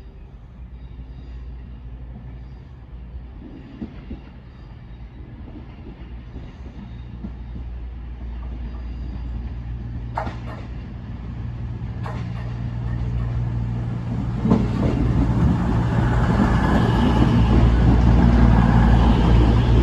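A train drawing near, its low steady drone growing louder throughout, with a few sharp clicks partway through.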